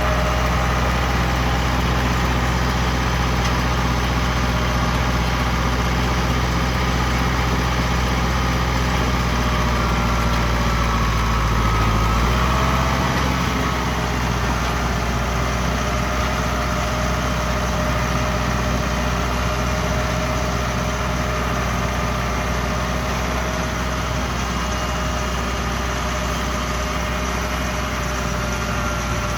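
Ford 6610 tractor's four-cylinder diesel engine running steadily under load while pulling a round baler. About twelve seconds in, the engine note shifts slightly lower and a little quieter.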